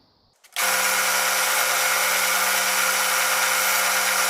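Powermatic 90 wood lathe running steadily, a constant hum under a steady hiss, starting abruptly about half a second in after near silence.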